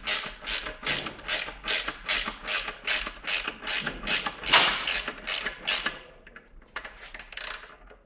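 Socket ratchet driving in a 12 mm bolt, about three clicking strokes a second, stopping about six seconds in, with a few faint clicks after.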